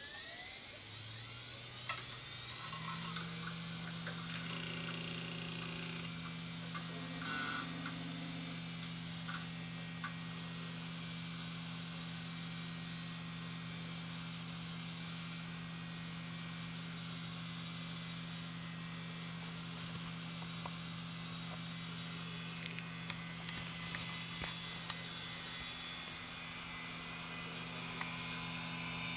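Several 3.5-inch hard drives of different spindle speeds spinning up, their motor whines rising in pitch over the first few seconds, then running together as a steady layered hum with a high whine above it. There are a few sharp clicks.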